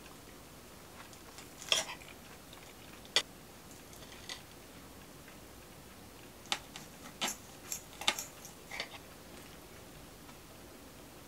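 Metal knife and fork clicking against a ceramic plate while food is cut: a couple of sharp clicks, then a quick cluster of them in the second half.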